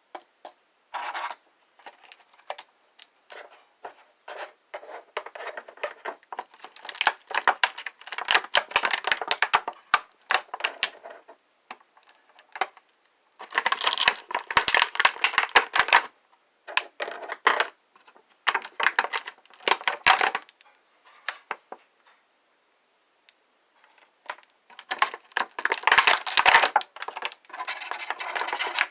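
Hands handling a plastic Transformers action figure and its packaging: irregular plastic clicks and rustling in bursts, with short pauses between.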